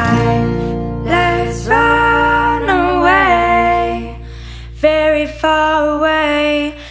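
Background song: a singer's melody over a steady low sustained note, sung in two phrases with a short break about four seconds in.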